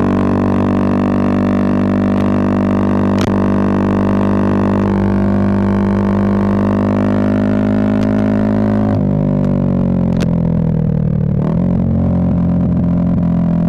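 Bajaj Pulsar 220F's single-cylinder engine through a Race Concepts full-system exhaust, running at steady high revs under throttle. About nine seconds in the revs drop off as the throttle closes, then pick up again and hold steady near the end.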